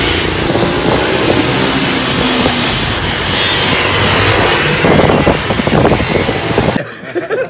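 Several small minibike engines running as the riders move along a street, heavily masked by wind buffeting the microphone. The sound cuts off suddenly near the end.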